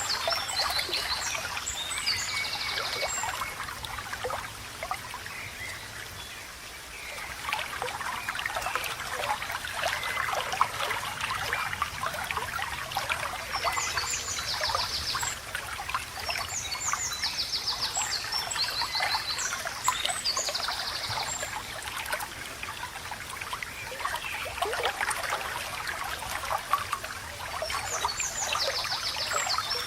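Small stream trickling and babbling steadily. A bird sings high, quickly repeated trilled phrases near the start, again through the middle, and near the end.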